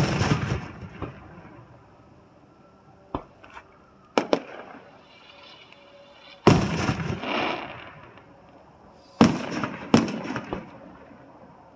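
Aerial firework shells bursting: about half a dozen sharp booms, each followed by a rumbling echo that dies away over a second or two, the last two coming close together.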